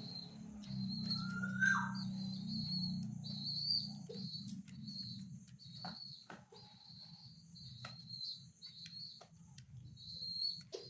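Young domestic pigeon (squab) peeping while being hand-fed, a string of short, high, thin squeaks repeated about every half second, with a few small clicks and a low hum that fades after a few seconds.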